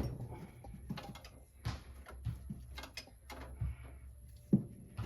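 Hand tools and small metal car parts clicking and knocking, an irregular string of light clicks with a sharp knock at the start and another about four and a half seconds in.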